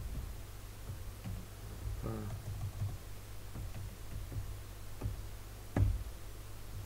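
Typing on a computer keyboard: irregular keystrokes, one struck harder about six seconds in, over a steady low hum.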